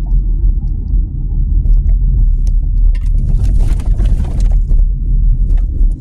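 Car driving, heard from inside the cabin: a steady low rumble of engine and tyres on the road. A brief hiss joins it about three seconds in and fades a second and a half later.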